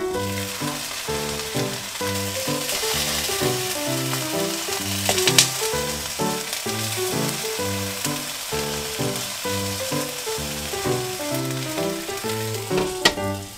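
New-onion wedges sizzling in olive oil in an uncovered frying pan, a steady hiss of browning. There is a sharp click about five seconds in and another near the end, over light background music.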